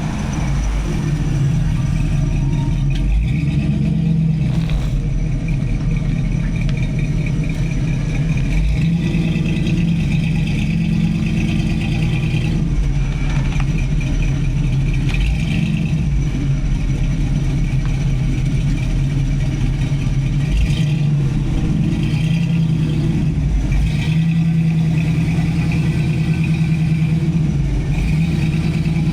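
Supercharged V8 engine of a 1983 Oldsmobile Cutlass Hurst running steadily, its pitch shifting a little at times.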